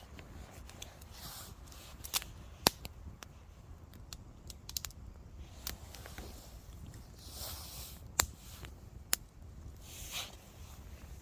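Several sharp clicks and a few soft rustling swishes, with a low steady rumble underneath.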